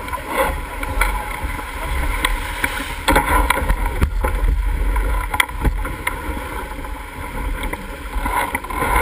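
Wind buffeting the microphone of a camera on a small sailboat under way, over a steady rush of water along the hull, with a few sharp knocks about three, four and five and a half seconds in.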